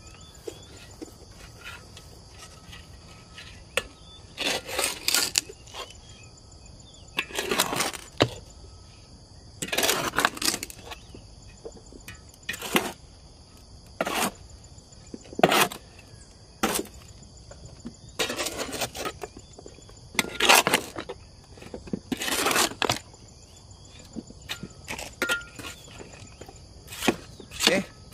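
Soil being turned and mixed with a garden tool: about a dozen scraping, scooping strokes, one every two seconds or so. A steady insect buzz runs underneath.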